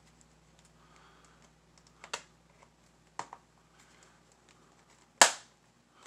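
Plastic clicks and small ticks as a small flathead screwdriver pries at the snap-in bottom cover of a Gateway GWTC71427-BK laptop, its retaining clips giving way. Three sharp clicks, about two, three and five seconds in, the last one the loudest.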